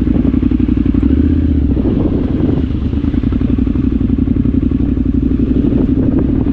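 Triumph Scrambler 900's 900 cc parallel-twin engine running steadily at low speed as the motorcycle rolls along a gravel track, with an even pulsing exhaust note.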